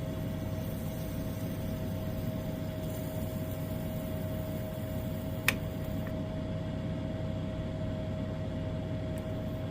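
Steady hum with a faint constant whine, and one sharp click about five and a half seconds in.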